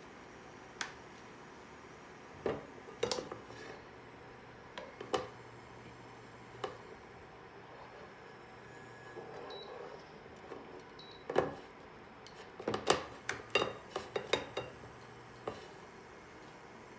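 Kitchenware being handled: scattered knocks and clinks of dishes and utensils, with a quick flurry of clinks shortly past the middle.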